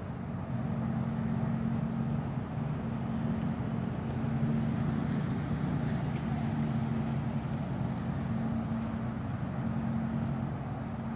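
An engine running steadily, a low unbroken hum.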